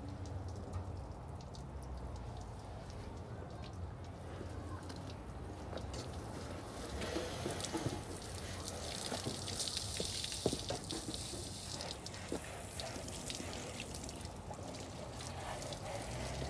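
Water spray from a hose spray gun hitting a car's body panels and windows, with splashing and dripping. The spray hiss builds about six seconds in, is strongest around the middle, and tapers off near the end.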